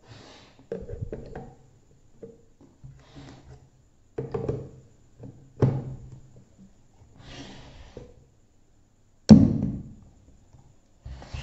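A plastic cordless-drill battery pack being fitted onto its battery mount on a carpet-covered wooden speaker box: a series of uneven plastic knocks and thunks with soft scraping between them. The loudest is a sharp knock about nine seconds in, as the pack seats in the mount.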